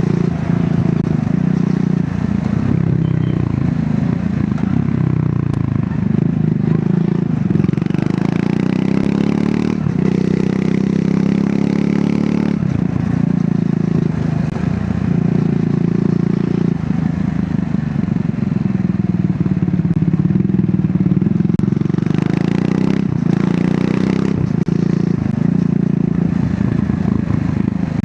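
Triumph Scrambler 400 X's single-cylinder engine through its stock exhaust while riding, revs climbing and dropping again and again as it pulls through the gears. A burst of rushing noise comes about 22 seconds in.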